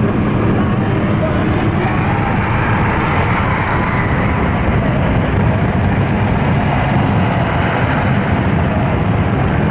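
Steady road noise inside a car cruising on the highway: engine, tyres and wind blending into one even rumble.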